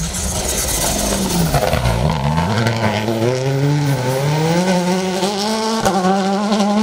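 Rally car engine running hard through a hairpin: the engine note drops as it slows, then climbs steadily as it accelerates out, with a quick break in the note near the end before it holds high again.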